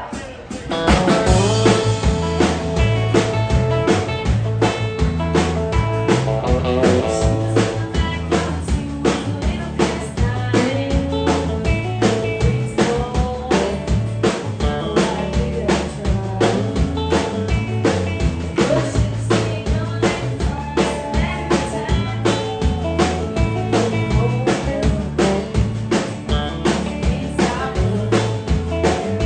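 Live country band playing an up-tempo song with a steady drum-kit beat, bass, and acoustic and electric guitars, starting about a second in.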